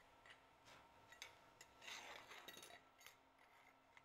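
Near silence with faint scattered clicks and light clinks of thin aluminum plates being handled and set down on a steel welding table, with a soft rustle about two seconds in.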